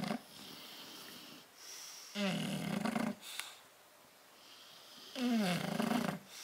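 Bulldog snoring in its sleep: two loud snores about three seconds apart, each a low pitched inhale that dips and then rises in pitch, with softer hissing breaths between.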